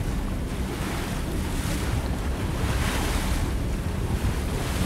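Wind buffeting the microphone over the wash of open-ocean water, a steady low rumble with the hiss swelling and fading every second or two.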